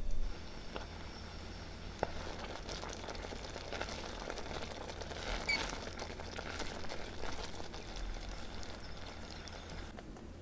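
A spatula stirring a thick corn and cream sauce as it simmers in a pot: soft, wet scraping with scattered small pops and clicks.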